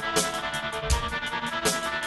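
Outro music with a drum beat, a heavy hit about every three-quarters of a second with lighter ticks between, over sustained instrument notes.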